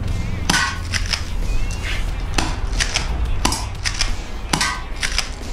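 Sharp clicks and snaps from an FNS-9 airsoft pistol as its slide is worked, about six over a few seconds, over a low steady rumble.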